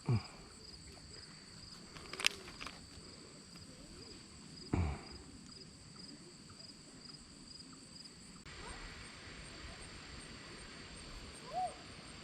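Insects chirping in a faint, steady, high-pitched pulsing trill, with a sharp click a couple of seconds in and two short falling calls, one at the start and one about five seconds in.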